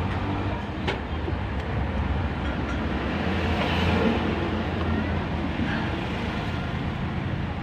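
Steady low hum of an engine running somewhere nearby, with a faint click about a second in.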